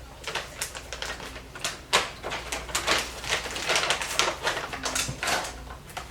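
Dogs eager for treats making quick, irregular clicks and taps, with no steady rhythm.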